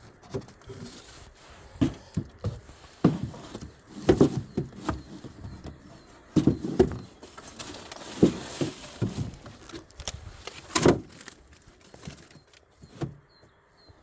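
Irregular knocks and clatter of wooden beehive parts being handled and set down as the hive is put back together, with a brief scraping hiss about eight seconds in.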